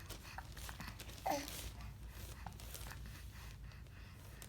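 A single sudden hiccup about a second in: a short, high-pitched squeak.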